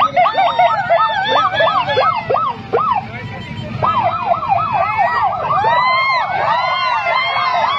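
Several police escort sirens yelping together, a dense overlap of quick rising-and-falling whoops, with a low rumble of crowd and motorcycle engines underneath. The whoops thin out for about a second midway, then pack in again.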